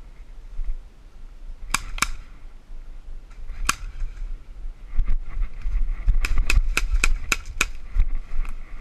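Airsoft guns firing single sharp shots: two close together about two seconds in, one more near four seconds, then a quick string of about seven shots in the second half.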